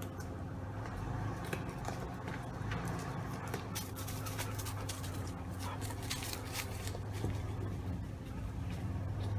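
Jeep engines running in a low, steady hum as a Jeep crawls slowly over rock, with a dog's short sharp noises scattered through the middle seconds.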